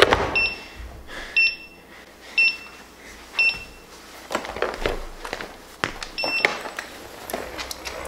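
Short high electronic beeps from a mini electric unicycle's beeper, about one a second, four in a row, then one more a few seconds later. In between come knocks and clatter as the wheel is picked up and handled.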